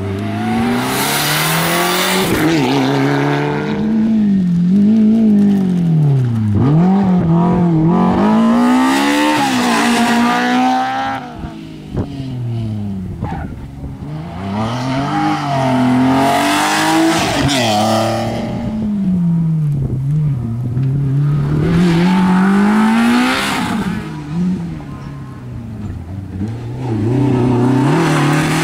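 Rally cars at full throttle on a tarmac stage, passing one after another (a Mitsubishi Lancer Evolution, a BMW 3 Series, an Opel Astra). Each engine revs up and drops back with every gear change, swelling loud as the car goes by and fading briefly between cars.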